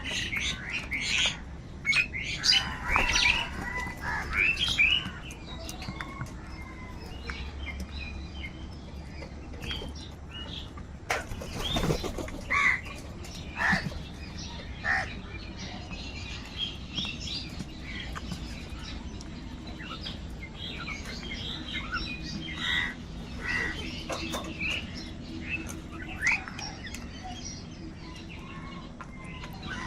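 Many crows calling with short, repeated calls, mixed with chirping of smaller birds. The calls come thickest in the first few seconds and in bursts again around the middle and near the end.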